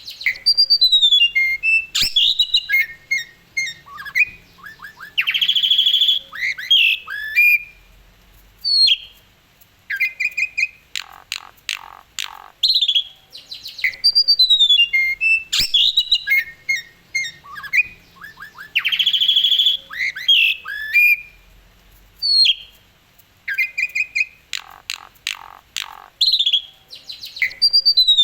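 Asian pied starling singing a varied song of clear whistles, sliding chirps and harsh squawking notes. The same run of phrases comes round twice, about every 14 seconds.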